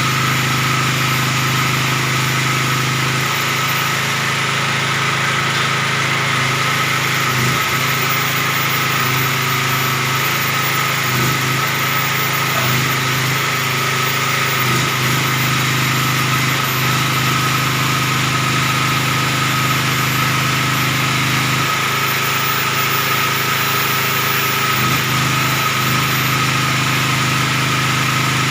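Portable generator engine running steadily at constant speed, with a steady high whine over its hum.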